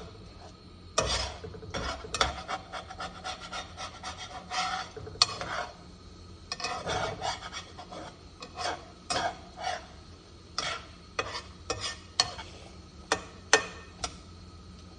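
A utensil stirring and scraping scrambled eggs around a frying pan: irregular scrapes and sharp taps against the pan, several close together at times. The eggs are being kept moving so they break up into scrambled eggs instead of setting into an omelet.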